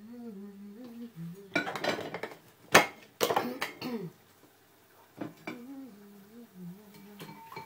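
Dishes and cutlery clattering on a kitchen worktop, a run of knocks and clinks with one sharp clink nearly three seconds in. Before and after the clatter a voice hums a low tune.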